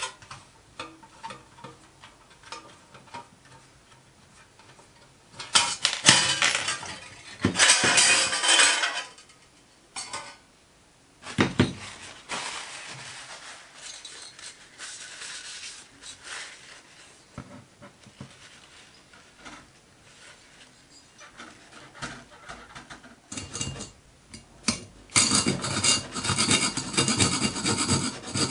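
Small brass parts, screws and hand tools clicking and clinking on the workbench as a model steam boiler is taken apart, with stretches of rubbing. Near the end comes a steady rhythmic scraping against the brass.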